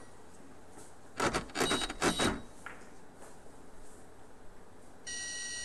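A quick run of three or four loud, sharp clattering knocks about a second in, then a half-second electronic beep of several pitches near the end.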